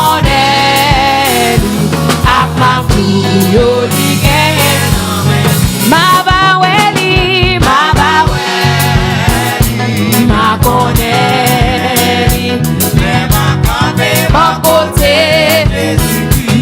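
Live gospel worship music: a church band with drum kit and bass keeping a steady beat under a wavering lead melody.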